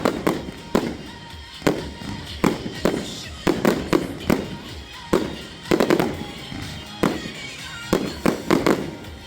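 Display fireworks going off: a rapid, irregular series of sharp bangs, often several in quick succession, each with an echoing tail.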